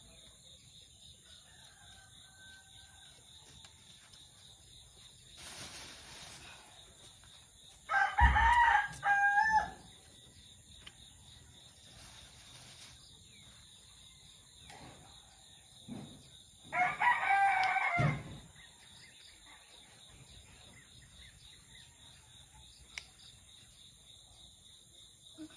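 A rooster crowing twice: about eight seconds in, and again some nine seconds later, each a loud, long, pitched call. Insects trill steadily and faintly underneath.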